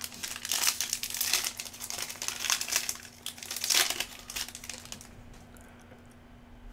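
Foil wrapper of a 2022 Bowman Chrome baseball card pack being torn open and crinkled by hand: dense crackling that eases off after about four seconds as the cards are pulled out of it.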